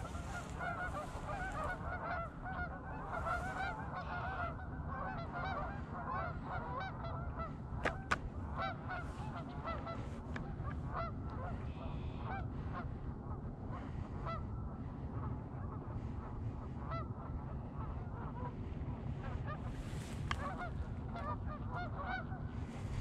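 A flock of Canada geese honking, many calls overlapping, thickest in the first few seconds and then thinning out.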